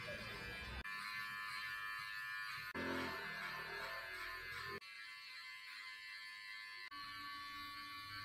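Electric hair trimmer buzzing as it cuts hair, under background music. The sound changes abruptly every two seconds or so at edit cuts.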